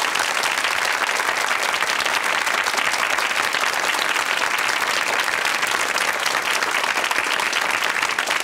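Studio audience applauding: steady clapping from many hands.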